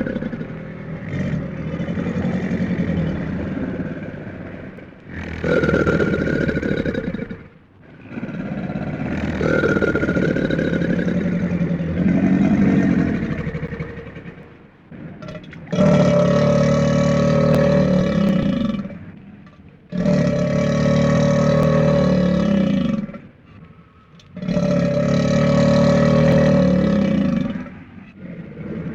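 Crocodile calling: a series of about six long, deep, growling calls, each a few seconds long, with short pauses between them.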